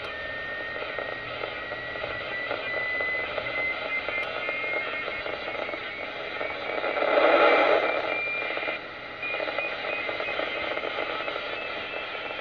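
Hissy FM receiver audio from a Yaesu FT-847 transceiver tuned near 436.2 MHz, with a faint whistle tone that slowly rises in pitch as the dial is turned. About seven seconds in, a louder rush of noise swells for a second or so. This is a weak, interference-laden signal while a satellite downlink is being searched for.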